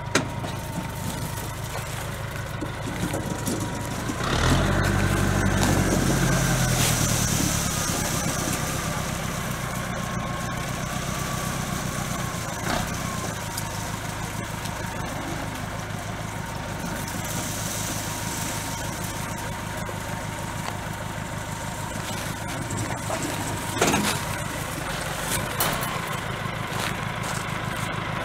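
Tractor engine driving an ear-corn picker, running steadily with a thin steady whine. About four seconds in it revs up under load and settles back over several seconds, while the picker's hopper is raised to tip the cobs. Two sharp knocks follow, the louder one near the end.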